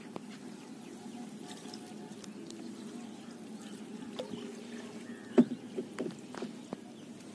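Water trickling and dripping from a cast net full of small fish as it is held up over the water. A few sharp drips and splashes land in the second half, the loudest about five and a half seconds in.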